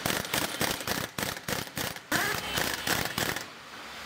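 Pneumatic impact wrench rattling in quick bursts of sharp knocks, tightening the wheel bolts of a road wheel being refitted.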